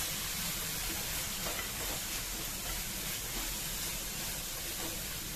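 Chopped onion, tomato and spices frying in oil in a non-stick pan, sizzling steadily while a spoon stirs the mixture.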